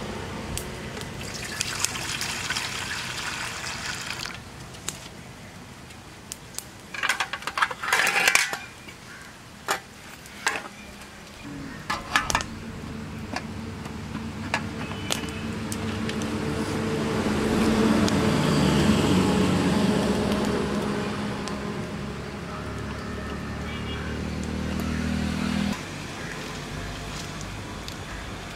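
Stainless-steel pots and a lid clanking as a steamer pot is set up and lined with cloth. A low engine hum swells and fades through the second half, then cuts off suddenly near the end.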